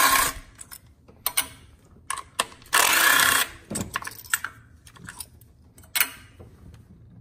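A cordless impact driver runs in two short rattling bursts, the longer one about three seconds in, as it backs out the 10 mm ignition-coil bolts. Between and after the bursts come light metallic clicks, one about six seconds in, as bolts are dropped into a steel magnetic parts tray.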